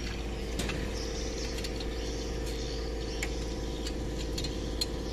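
A small motorcycle engine idling steadily, with a few light metallic ticks and taps over it.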